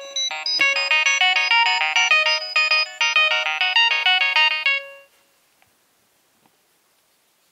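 Nokia 6820a mobile phone playing a polyphonic ringtone through its loudspeaker: a fast, busy melody of short notes that cuts off abruptly about five seconds in.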